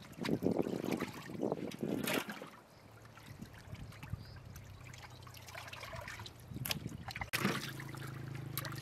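Water splashing and sloshing as hands wash raw chicken pieces in a large aluminium pot of water, loudest in the first two seconds and then quieter.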